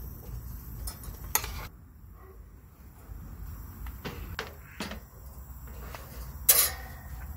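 Scattered light clicks and knocks of metal utensils and tableware being handled. Near the end comes one much louder metallic clank with a brief ring.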